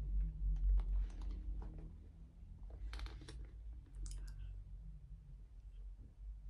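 A handbag being handled and turned around, with scattered light clicks and taps, clustered about three and four seconds in, over a steady low hum.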